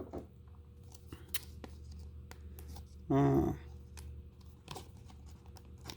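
Faint scratching and small clicks of hands working a trading-card-style Dim card out of its plastic packaging and tape, with a short voiced hum a little past halfway.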